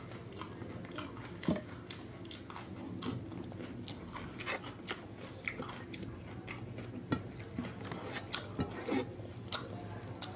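Chewing of jeera rice mixed with dal makhni, eaten by hand, with irregular wet mouth clicks and smacks over a steady low hum.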